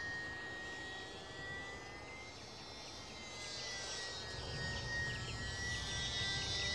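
Thin, steady high whine of a Champ S+ micro electric RC airplane's motor and propeller in flight, wavering slightly in pitch. A low wind rumble on the microphone joins from about four seconds in.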